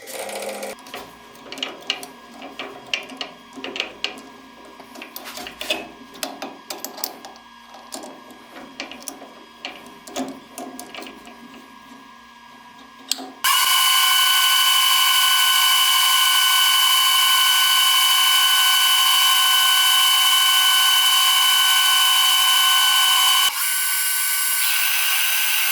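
Metalworking machine tool: about thirteen seconds of irregular clicking and clatter over a faint steady hum, then a loud, steady, high-pitched whine that starts suddenly and drops slightly in level near the end.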